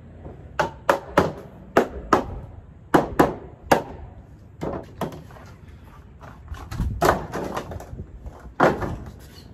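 Hard plastic shelving parts knocked and clattered together during assembly: a dozen or so sharp, irregular knocks.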